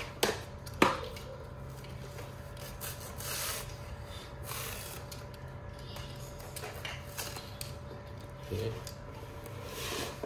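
Utility knife cutting through a sheet of foam: soft, intermittent scraping strokes of the blade through the foam, with two sharp clicks within the first second.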